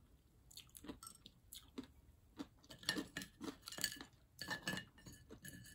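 Faint, scattered clinks and clicks of a plastic spoon and fingers against ceramic dinner plates while eating, a few of them with a short ringing tone.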